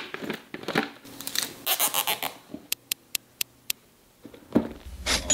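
Plastic cable ties being handled: rustling and rattling, then a run of about six sharp plastic clicks over about a second, with a few knocks near the end.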